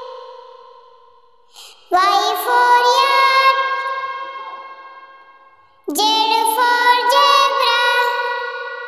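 Two long sung notes in a child's voice, each starting suddenly and fading away over about four seconds, the first about two seconds in and the second near six seconds.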